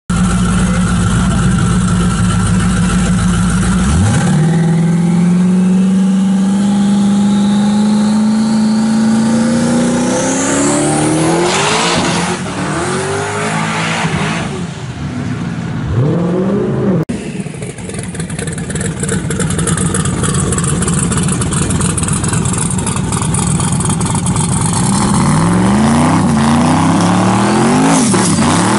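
Turbocharged pickup truck engines at full throttle on a drag strip. First a held high-rpm burnout, then a launch with the engine pitch climbing steadily for several seconds and a high whine rising with it, followed by a few quick rise-and-fall swings in revs. Near the end an engine is revved in short repeated blips.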